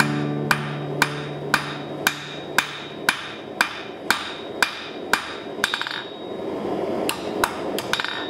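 Hand hammer striking red-hot steel bar stock on an anvil at a steady two blows a second, each blow ringing briefly. About five and a half seconds in comes a quick flurry of light taps, and a few more blows follow near the end.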